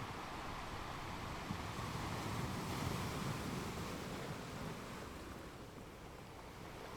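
Ocean waves washing on a shore: one slow swell builds to a peak and then ebbs away.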